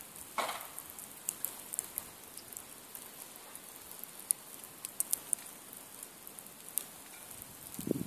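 Burning logs of a two-log nodya campfire crackling, with scattered sharp pops and ticks over a soft hiss. A brief louder burst comes about half a second in, and a short low sound comes near the end.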